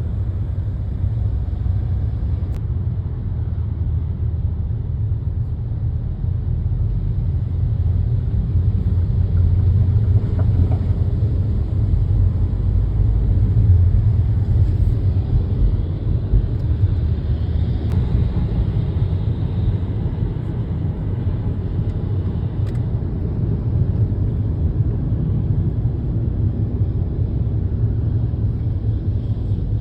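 Steady low rumble of a car on the move, swelling a little midway.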